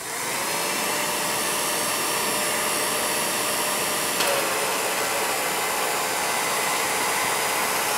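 1949 Revere P-90 8mm projector running with its clutch engaged, motor, cooling blower and mechanism whirring steadily after spinning up in the first moment, with one small click about four seconds in. The mechanism is running dry, not yet oiled.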